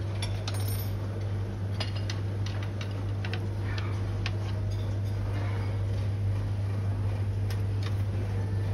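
Scattered light clicks and clinks of plates and cutlery over a steady low hum.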